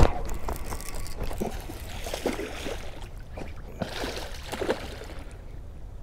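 A sharp knock at the start, then irregular splashing as a hooked largemouth bass thrashes at the surface beside the kayak.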